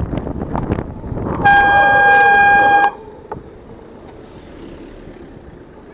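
A bicycle air horn sounding one loud, steady single-pitched blast lasting about a second and a half, starting about a second and a half in, over wind and road noise.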